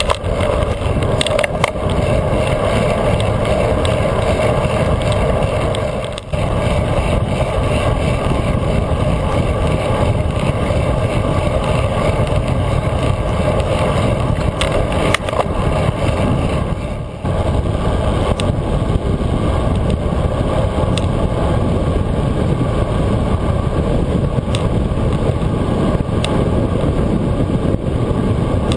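Steady rush of wind and road noise on a handlebar-mounted GoPro on a road bike moving at speed: wind buffeting the microphone and tyres running on asphalt, with a few small knocks from road bumps. The noise dips briefly twice.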